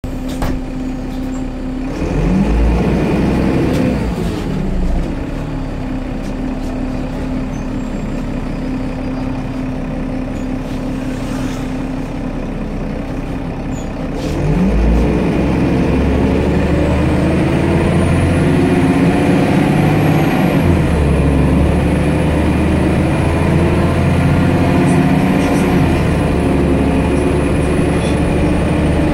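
Solaris Urbino 12 city bus heard from inside the cabin: its MAN D0826 LOH17 six-cylinder diesel idles, with a brief rise and fall in engine speed about two seconds in. About halfway through it gets louder and climbs in pitch as the bus pulls away and accelerates, with a gear change of the Voith four-speed automatic partway through.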